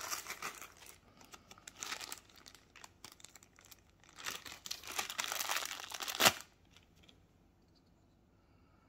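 Clear plastic bag crinkling and rustling as it is handled and opened, with a louder stretch of rustling about halfway through that ends in a sharp click.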